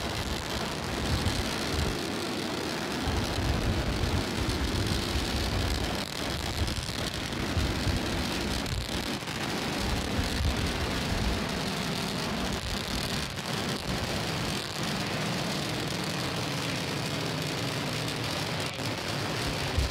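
Starship SN8's three Raptor rocket engines firing during ascent: a steady, loud rushing roar with a deep, fluctuating rumble underneath.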